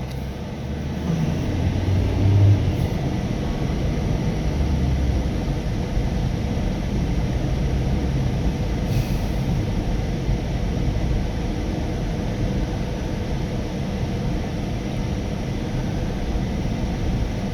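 Steady low road rumble of a car driving at speed, heard from inside the cabin: tyre and engine noise.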